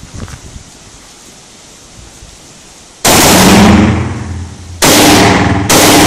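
Three loud rifle shots from an HK MR223 semi-automatic .223 rifle. The first comes about three seconds in and the next two follow closer together, each with a long echoing tail.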